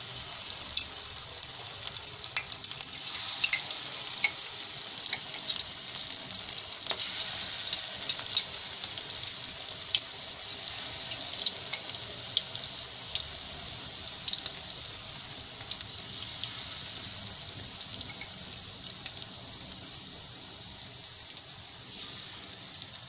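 Gram-flour batter pakoras deep-frying in hot oil: a steady sizzle with many small crackling pops, easing off in the second half as the frying settles.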